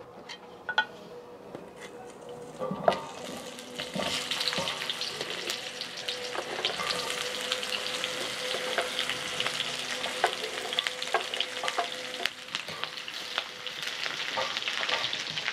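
Sliced onions and chiles frying in hot oil in a large pan, sizzling as they are stirred with a wooden spoon, with scattered clicks and scrapes. The sizzle swells about four seconds in as more of the vegetables go into the oil.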